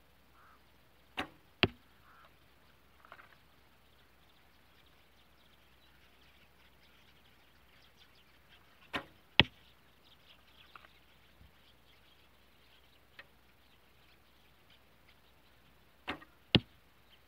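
Bearpaw Slick Stick traditional longbow shot three times, about seven seconds apart. Each shot is a sharp snap of the string on release, followed less than half a second later by a louder crack as the arrow hits the target.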